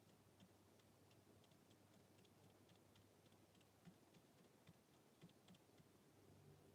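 Faint, irregular light ticks and taps of baby birds pecking at food and the floor, over a low steady hum.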